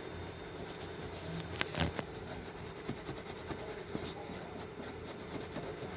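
Soldering work on a TV scaler board: a light rubbing and scraping as the chip is soldered into place, with a couple of small clicks a little under two seconds in.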